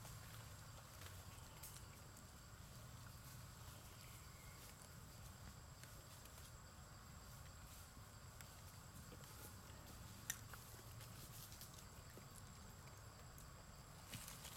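Near silence: faint outdoor ambience with a thin steady high tone, scattered light ticks and one sharper click about ten seconds in.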